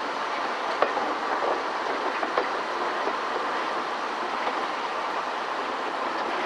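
Heritage railway carriage running along the track: a steady rumble of wheels on rail, with a few sharp wheel clicks in the first couple of seconds.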